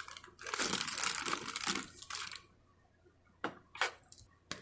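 Plastic packaging crinkling and rustling for about two seconds, then a few sharp, separate clicks.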